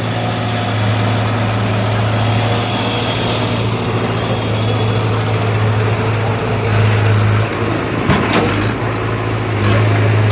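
An engine running steadily with a low hum, and a short clatter of knocks about eight seconds in.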